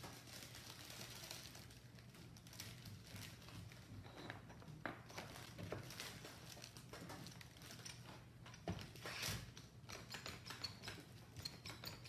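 Faint handling noise of a plastic-wrapped, steam-bent wood strip being pressed around a plywood bending form: light crinkling and scattered small taps and knocks, with a sharper knock about nine seconds in, over a low steady hum.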